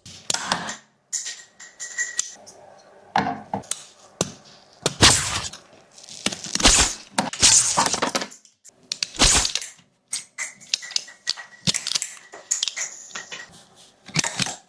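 3D-printed plastic disc shooter being worked and fired. It makes irregular sharp plastic clicks and cracks as it is loaded and launches discs, with the loudest cracks about five, seven and nine seconds in.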